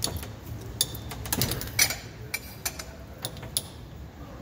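Irregular sharp metal clicks and clinks, about a dozen, from a motorcycle front fork being handled in a steel fork-service jig as its loosened cap is freed and the tube slid up; the loudest clink comes a little under two seconds in.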